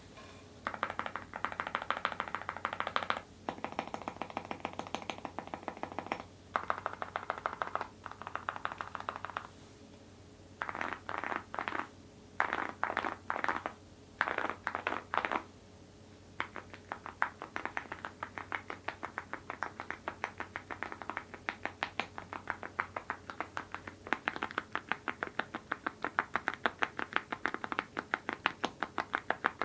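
Mechanical keyboard with Awekeys full-metal keycaps on linear switches being typed on: rapid keystroke clacks in bursts with short pauses, then steady fast typing through the second half.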